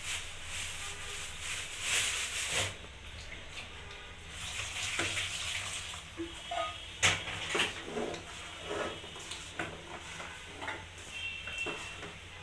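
Bare hands mixing raw cut taro stolons, jackfruit seeds and spice pastes with mustard oil in an aluminium pan: wet rustling and squishing with small knocks against the pan, and one sharp click about seven seconds in.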